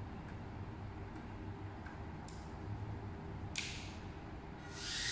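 A micro FPV drone flying indoors. Its motors are faint at first over a low room hum with a few light clicks. Near the end a high-pitched whine and hiss from its small propellers swell up as it comes closer.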